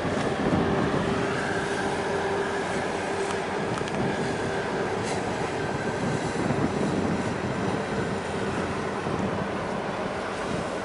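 Steady engine drone of ships in harbour, with a constant hum, mixed with wind on the microphone and rushing water.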